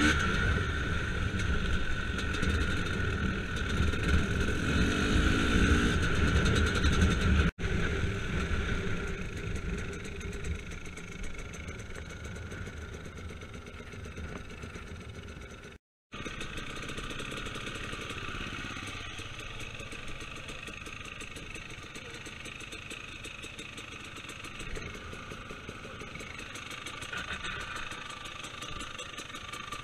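Enduro motorcycle engine running as the bike is ridden along a gravel track. The sound cuts off abruptly twice, about a quarter of the way in and about halfway. After that the engine runs quieter and steadier, ticking over with the bike stopped near the end.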